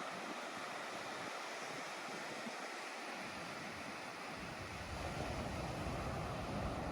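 Steady outdoor rushing noise. About four and a half seconds in, a low rumble of wind buffeting the microphone joins it.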